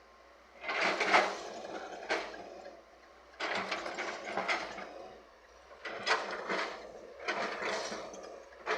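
Earthmoving machinery working murram, the gravelly laterite soil: four separate bursts of gritty clattering and scraping as the soil is dug and moved.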